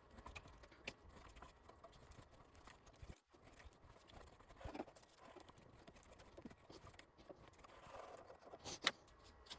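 Near silence with faint clicks and creaks from a die stock being turned by hand, cutting a 1/2 inch 26 tpi British Standard Brass thread on a bar held in a lathe chuck. One sharper click comes near the end.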